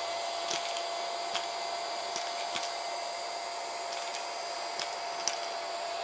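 Aorika 120 W cordless handheld vacuum running steadily, an airy rush of suction with a steady whine on top. A few light clicks scattered through it, as pennies are pulled up into the clear dust cup.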